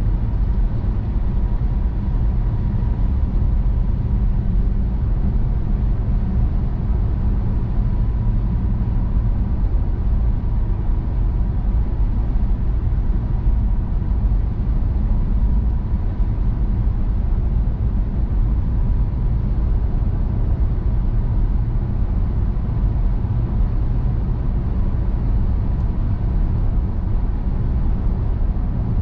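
Car driving at highway speed: steady, even road and tyre rumble with engine noise, and a faint steady whine above it.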